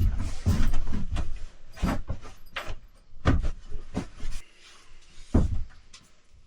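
A series of irregular knocks and thumps, a cluster in the first second and then single knocks every half second or so, with handling noise between them.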